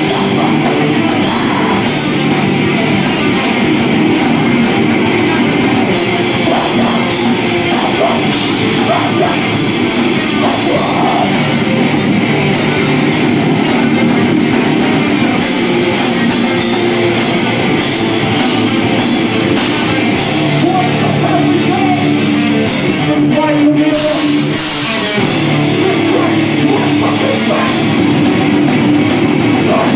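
Heavy rock band playing live and loud, with guitar, drum kit and vocals, and a brief drop in the playing late on.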